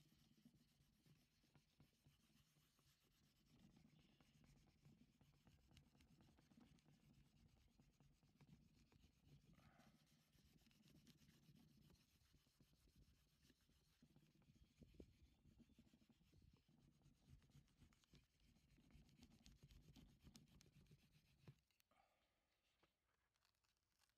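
Faint, steady rubbing of a small round hand tool over the back of heavyweight printmaking paper on an inked plate, pressing the print by hand. The rubbing stops about three seconds before the end.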